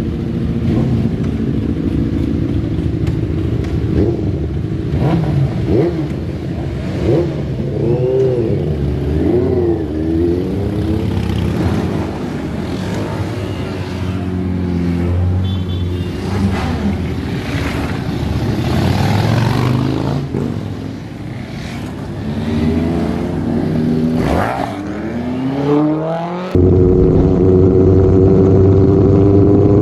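A group of superbike engines idling and being revved, their pitch rising and falling as the bikes move off. About 26 seconds in the sound cuts abruptly to a louder, steady engine drone of motorcycles cruising in a group.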